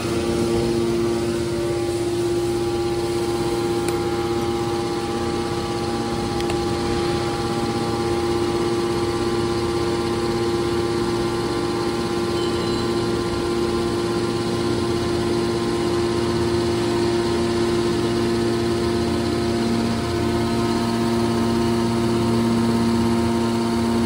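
Scrap car baler machinery running steadily with a constant, even hum at a fixed pitch.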